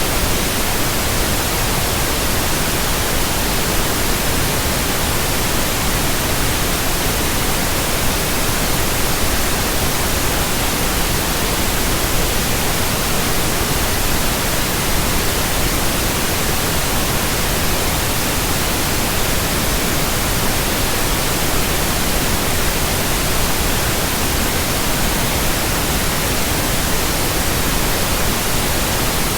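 Steady synthetic pink noise: an even, unchanging hiss spread across low and high pitches alike.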